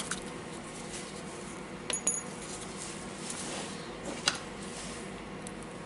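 Small steel clutch balls from a Makita DDF456 drill's clutch being picked out and dropped, clinking with a few light metallic clicks. One click about two seconds in rings briefly, and another sharp click comes just after four seconds.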